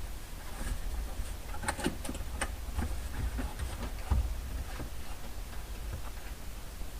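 Plastic dash trim being handled and pressed into place, giving a series of light clicks and taps, a cluster of sharper ones about two seconds in.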